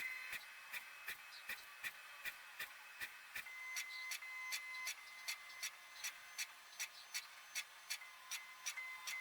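Even mechanical ticking, close to three ticks a second, over a faint steady high hum that grows a little stronger about halfway through.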